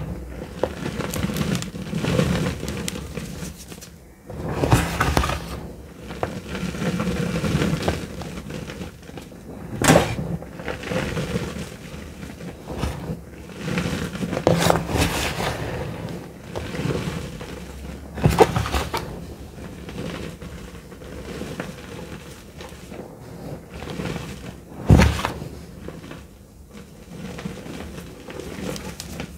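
Bare hands squeezing and crushing a big pile of dry, powdery gym chalk: a steady crumbly crunching and powdery rustle, broken by several sharper crunches, the loudest about 25 seconds in.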